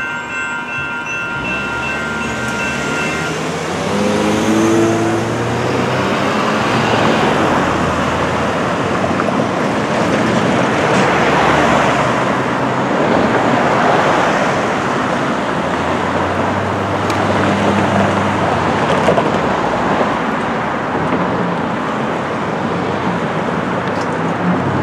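Electronic railroad crossing bells ringing, cutting off about three seconds in as the crossing gates rise. Then road traffic takes over: car engines revving up as they pull away, and cars driving past across the crossing.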